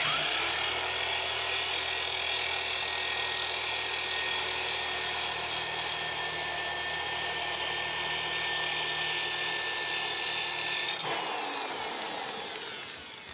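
Mid-torque impact spinning a grinding-stone lawnmower blade sharpener against a mower blade's edge: a steady motor whine with stone scraping on steel. About 11 seconds in the trigger is released and the motor winds down with a falling whine.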